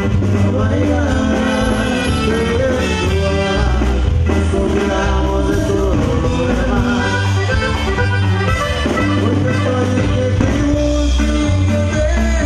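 Live norteño band playing: button accordion, saxophone, guitar, electric bass and drum kit, with a steady bass line.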